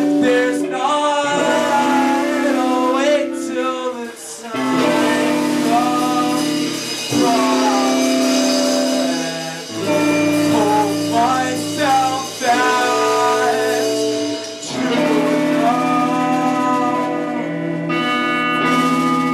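Live band playing a song: a singer's voice over guitar chords that change every few seconds.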